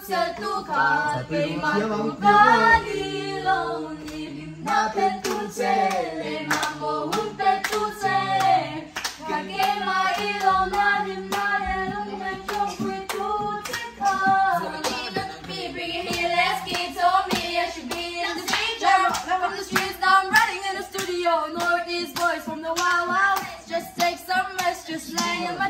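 A woman's voice singing a song, with hand clapping along throughout.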